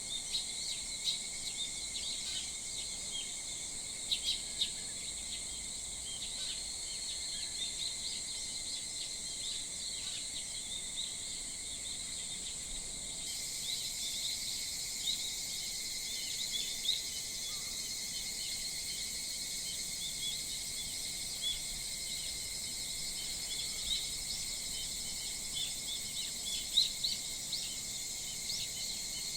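Early-morning chorus of insects and wild birds: a steady, high insect drone runs throughout, with many short bird chirps scattered over it.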